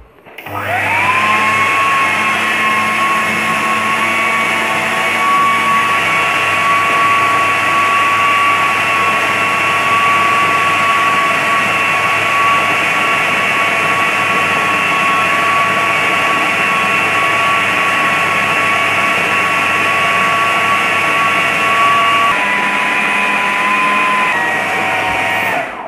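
Electric food processor motor spinning up and running with a steady high whine as its blade grinds minced meat with onion, green chillies, herbs and spices into a smooth kebab paste. The pitch steps down twice near the end, and the motor stops just before the end.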